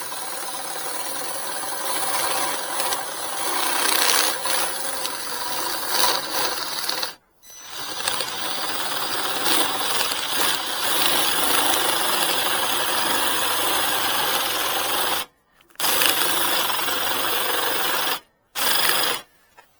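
Cordless drill spinning a 32 mm spade bit into a wooden post, boring a recess for a 30 mm washer. It runs steadily and stops briefly three times, the last near the end.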